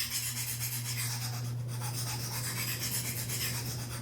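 Steel knife blade scraped back and forth on the coarse side of a diamond sharpening plate, making a continuous rasping scratch as a burr is raised along the edge. A steady low hum runs underneath.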